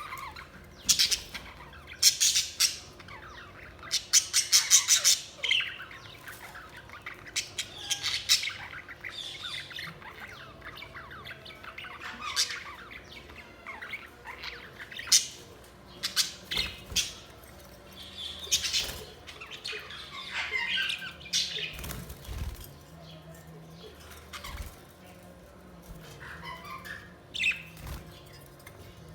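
Budgerigars chirping and squawking in irregular bursts of rapid, harsh chatter, loudest in the first few seconds.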